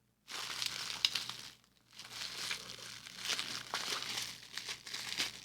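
Crinkly packaging being handled and crumpled: a stretch of crackling, a short pause just before two seconds in, then more crinkling with sharp crackles.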